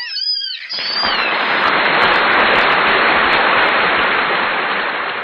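Newborn kittens mewing in high, rising-and-falling cries for about a second. They are then drowned out by a loud, even crackling hiss that lasts the rest of the time.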